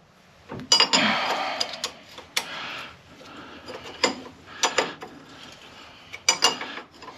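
Hand wrench working a nut on a Jeep Wrangler JK's steering by hand: irregular metal clicks and clinks of the wrench against the nut and tools, in small clusters.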